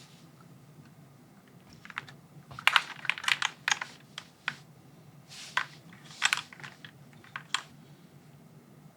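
Typing on a Haven65 XT gasket-mounted mechanical keyboard with an aluminium plate, no foam, linear switches and PBT keycaps. Keystrokes begin about two seconds in, come in two short irregular bursts, and stop over a second before the end.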